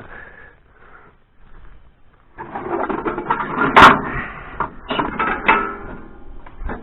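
Irregular mechanical clattering and knocking, with sharp clacks a little under four seconds in and again about five seconds in; no engine is heard running.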